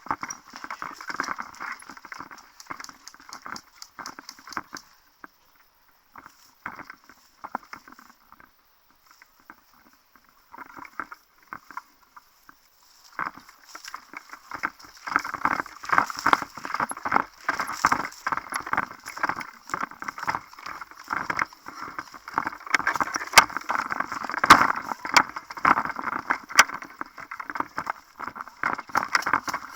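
Close footsteps and the rustle of clothing and gear as a player moves at an irregular pace, sparse for a few seconds around the middle and busier in the second half. A few sharp cracks come near the end.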